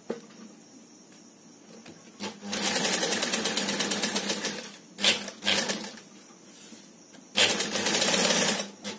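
Industrial sewing machine stitching in short runs. It is quiet at first, then runs for about two and a half seconds, gives a brief burst, pauses, and runs again near the end. The work is stopped and turned between runs to round off a corner.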